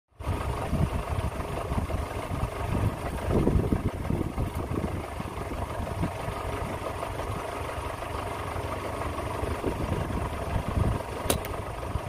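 A steady low rumble like an idling engine, with a single sharp click near the end.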